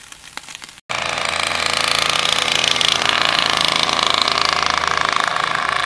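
A loud, steady mechanical rattling drone with a fast even pulse, like a motor running. It starts abruptly about a second in and stops abruptly near the end.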